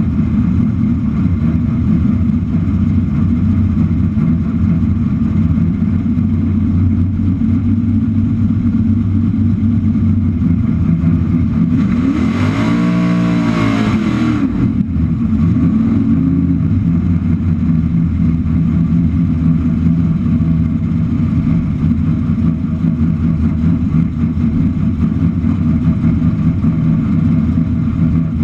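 1967 Camaro drag car's freshly built engine idling loudly and steadily, blipped once in a brief rev about twelve seconds in that rises and falls back to idle.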